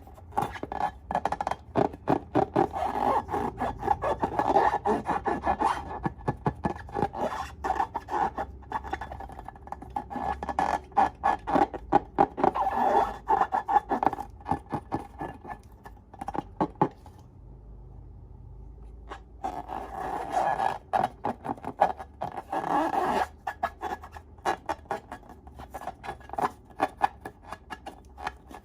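Slime being stirred and scraped, a dense run of quick sticky clicks and scraping strokes, with a short pause about two-thirds of the way through.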